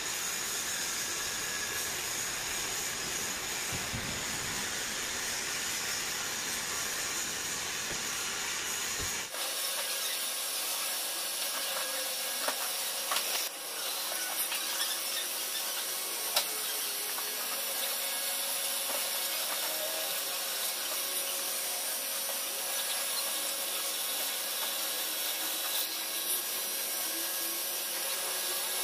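A drilling machine running as a twist drill bores into a metal block under cutting fluid, a steady whirring hiss. About nine seconds in the low rumble drops out abruptly, and a few sharp light clicks follow.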